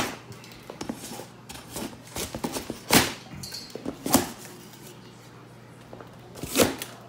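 Hatchet blade cutting the plastic packing straps on a large cardboard box: four sharp cracks spaced a second or more apart, with lighter clicks and rustling of strap and cardboard between.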